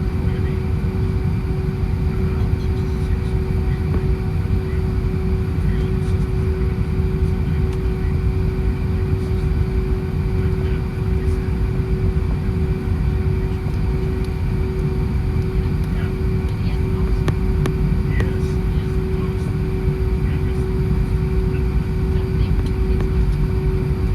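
Cabin noise inside an Airbus A320 with IAE V2500 turbofan engines: a steady low rumble with a constant hum, with no change in level.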